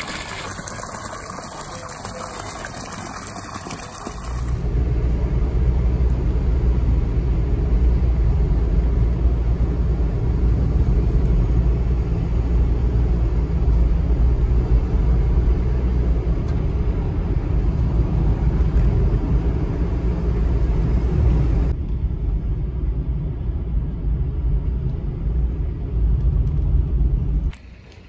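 For the first four seconds, water splashes from a pipe into a pool. Then a car is heard from inside its cabin as it drives along a road: a loud, steady low rumble of engine and tyres that carries on until the car audio cuts off just before the end.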